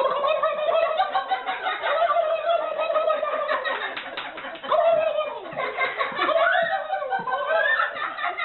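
A man's voice doing a warbling turkey-gobble imitation, mixed with laughter, wavering up and down in pitch without a break.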